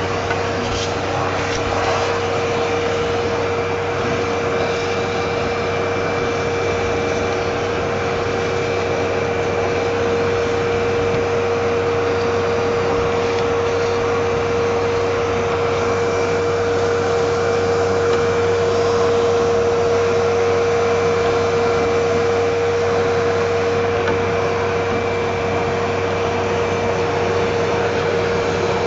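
Vacuum cleaner running steadily, a constant hum with a whine, sucking dust from the refrigerator's coil area.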